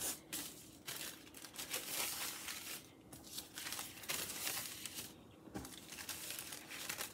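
Green tissue paper sheets rustling and crinkling in irregular bursts as they are gathered up, stacked and pressed flat by hand.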